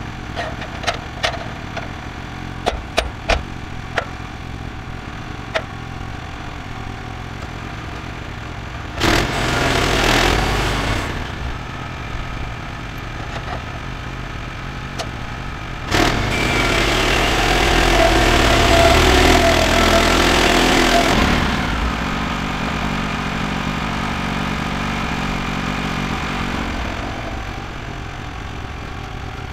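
The gas engine of a Woodland Mills HM126 bandsaw mill runs steadily, with a few sharp knocks and clanks in the first several seconds as the log is handled on the mill bed. There is a louder stretch of about two seconds near the middle, and a longer one of about five seconds past it.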